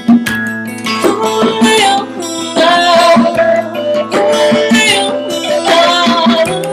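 Live acoustic band music: plucked guitar with a gliding melody line on top.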